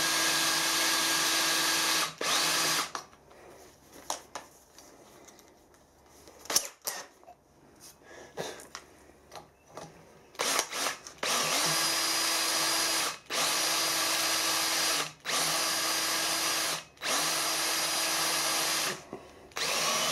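Hand-held electric drill with a new cobalt bit drilling dry into a cast-iron flywheel hub. It runs in bursts: one at the start, then a pause of several seconds with a few light clicks, then a string of short bursts of about two seconds each, every one spinning up after a brief stop.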